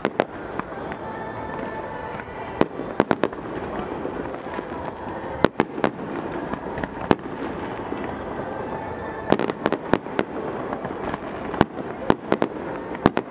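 Fireworks going off: sharp bangs, some single and some in quick clusters of two to four, repeating every few seconds.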